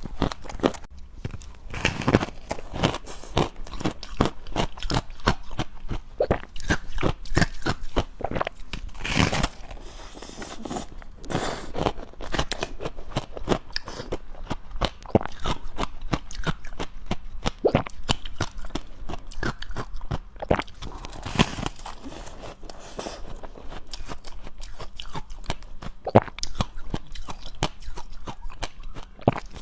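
Close-miked chewing of dry, powdery freezer-frost ice: rapid, irregular crunches with occasional louder bites.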